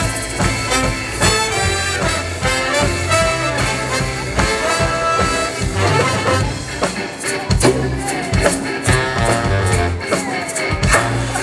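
Live swing band playing an instrumental passage, with a steady bass line and sliding notes in the second half.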